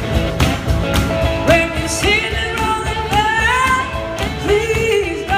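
Live acoustic band playing: acoustic guitar and drums with a steady beat of hand claps about twice a second, and a sung vocal line coming in about a second and a half in.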